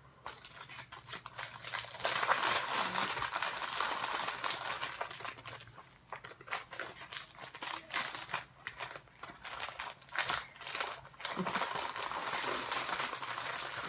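Crinkling and rustling with light clicks as a cross-stitch project is handled and packed back together, heaviest in two spells, a few seconds in and again near the end.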